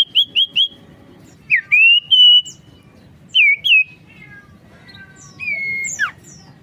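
Sirtu (cipoh, an iora) singing: a quick run of short clear whistles at the start, then a few longer whistled notes that swoop up and level off, and near the end a held whistle followed by a sharp falling note.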